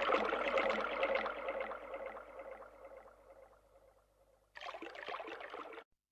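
A splashing, trickling water-like noise texture from a computer-acoustic electronic composition, fading away over about four seconds. A second short burst comes about four and a half seconds in and is cut off abruptly.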